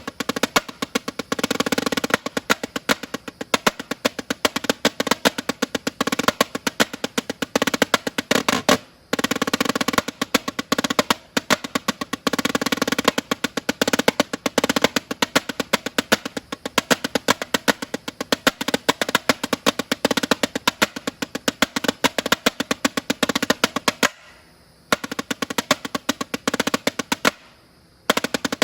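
Snare drum played solo in fast freestyle patterns and rolls of rapid sharp strokes, with short breaks about nine seconds in and twice near the end.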